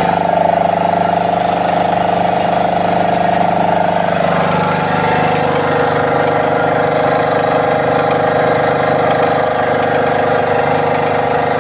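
High-pressure scuba air compressor running steadily under load while filling three cylinders towards 300 bar. It makes a steady, even multi-tone hum whose pitch shifts slightly about four to five seconds in.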